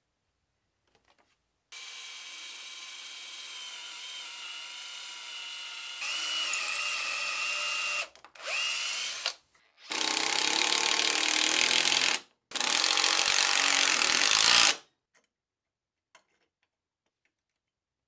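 Cordless drill/driver running in several bursts as screws are driven through a metal caster mounting bracket into an oak leg. There is a steady whir for about four seconds, then a louder run rising in pitch, a short burst, and two louder runs of about two seconds each near the end.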